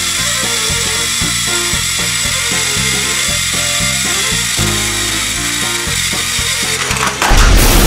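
Background music with a steady beat over the steady whine of battery-powered TrackMaster toy train motors straining as the two engines push against each other. A loud whooshing sweep comes in near the end.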